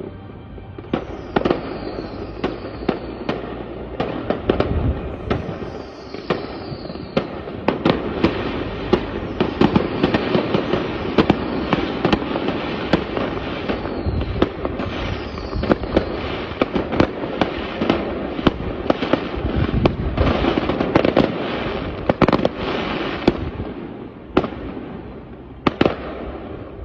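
Fireworks display: a rapid barrage of bangs and crackling, with short falling whistles in the first few seconds. It thins out near the end.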